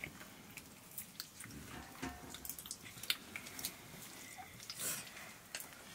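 Quiet sounds of people eating rice by hand from metal plates: scattered small clicks and scrapes of fingers and food against the plates, with the sharpest click about three seconds in.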